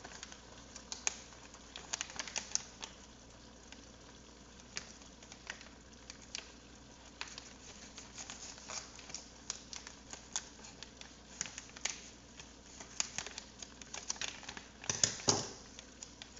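Plastic cheese bag crinkling and crackling in irregular bursts as it is worked and pulled at by hand to tear it open, with a louder burst about fifteen seconds in.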